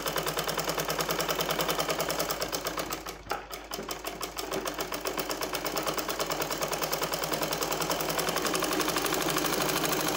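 Black domestic sewing machine stitching a seam, running with a fast, even rhythm of needle strokes. It slows briefly about three seconds in, then picks up again.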